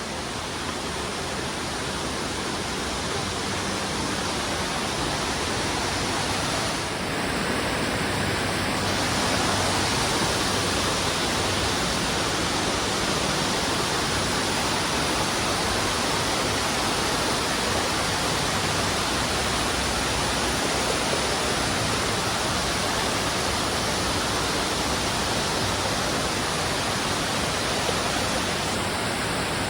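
Indoor waterfall: a steady rush of falling water, growing a little louder over the first several seconds and then holding even.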